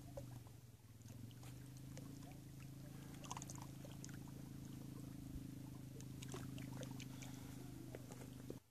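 A steady low hum runs under small water splashes and light clicks at a rocky lake shore. All of it cuts off suddenly near the end.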